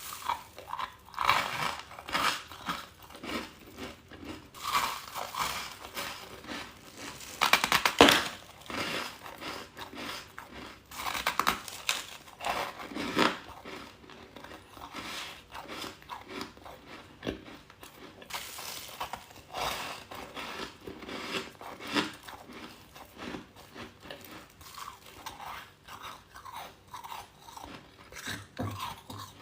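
Ice being bitten and chewed close to the microphone: a long run of irregular crunches, with a few sharper, louder bites, the loudest about eight seconds in.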